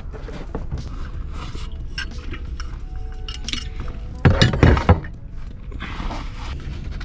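Objects being handled and set down inside a truck cab: rustling with light clinks and knocks, and a cluster of louder knocks about four and a half seconds in.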